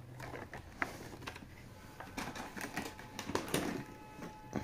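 Clear plastic packaging tray of a wireless mouse being handled and pulled from its cardboard box: a run of light clicks, taps and crackles.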